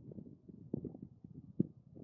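Wind buffeting the camera's microphone in irregular low gusts, with no engine running.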